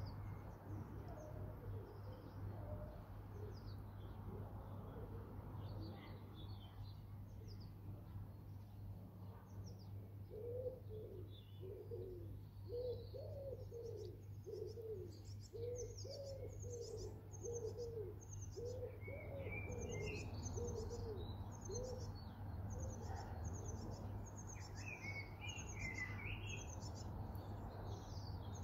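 Garden birds singing, with many short high chirps and trills that grow busier in the second half. A run of low, evenly repeated cooing notes comes through the middle.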